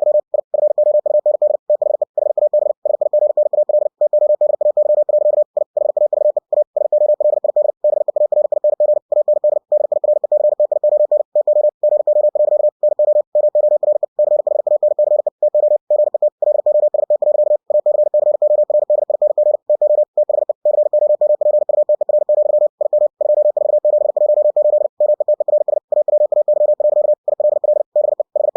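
Computer-generated Morse code at 60 words per minute: a single mid-pitched tone keyed on and off very rapidly in dots and dashes. The stream of characters is broken by brief pauses between words.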